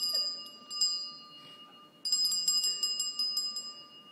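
A bell rung in strokes: one clear ring, another just under a second later, then a rapid run of rings for about a second and a half, each ring dying away.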